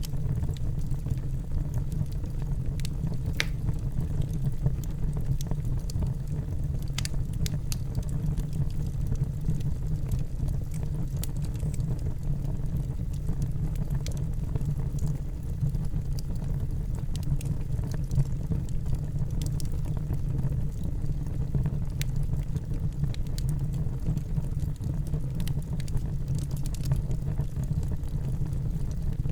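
Wood fire burning in a fireplace: a steady low rumble with scattered crackles and pops.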